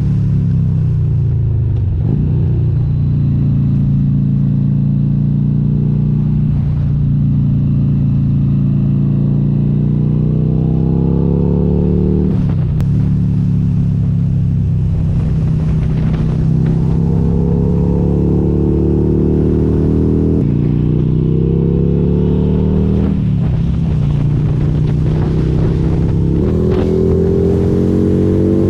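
Harley-Davidson V-twin motorcycle engine under way, loud and close. Its pitch repeatedly climbs under throttle and then drops sharply, about seven times, every three to five seconds.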